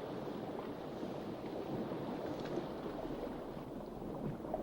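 Steady, soft wash of sea noise with no distinct events.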